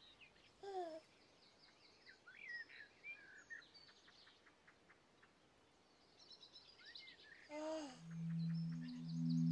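Birdsong ambience: birds chirping and warbling, with two short falling calls, one about a second in and one near the end. Low sustained music notes come in near the end and grow louder.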